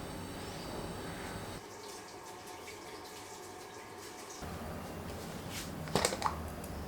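Quiet kitchen work sounds: faint scattered ticks and taps over a low room background, then a few sharp clinks about six seconds in.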